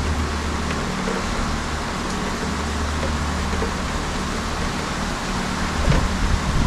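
Heavy rain pouring down in a steady hiss, with a constant low hum underneath.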